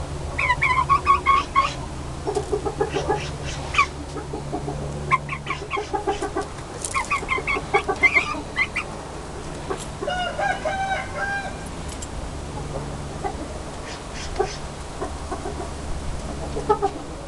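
Chicken clucking in repeated bursts of short pitched calls, with a few longer drawn-out notes about two-thirds of the way through, over a steady low hum.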